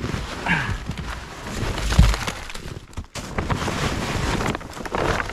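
Frozen milled pine boards being broken loose from ice: a run of irregular knocks, with a heavy low thump about two seconds in.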